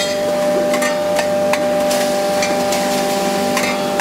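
5 HP masala grinding machine running steadily while grinding dry red chillies: a constant motor hum with an irregular clatter of sharp ticks from the pieces being broken up inside.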